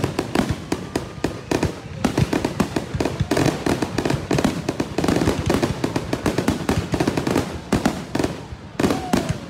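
Fireworks display: a dense, unbroken volley of bangs and crackles, several reports a second.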